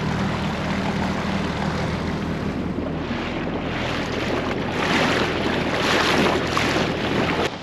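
Small outboard motor pushing an inflatable dinghy along at a steady speed, with water rushing and spraying past the hull and wind on the microphone. The sound cuts off just before the end.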